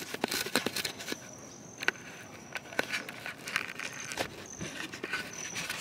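Handling noise from a camcorder being moved about close to a cat: irregular knocks and rustles. A thin high tone is held for about two seconds from about a second in, and short high tones sound near the end.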